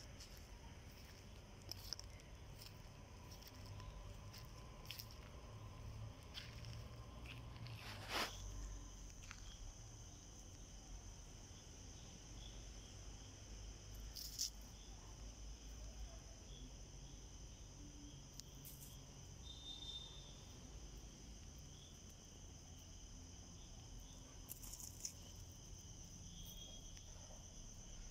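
Faint, steady, high-pitched chirring of night insects, with scattered clicks and knocks. The loudest knock comes about eight seconds in.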